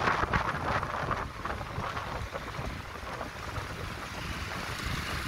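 Steady rushing of wind on the microphone over street traffic noise on a rain-wet road, with no single engine standing out.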